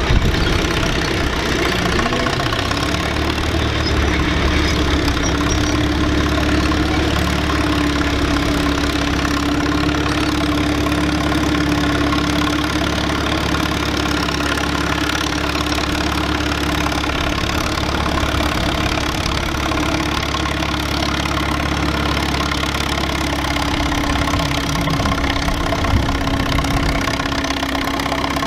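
Allis-Chalmers Model A tractor's four-cylinder engine running steadily under load as it pulls a weight-transfer sled slowly down the track, its note even throughout.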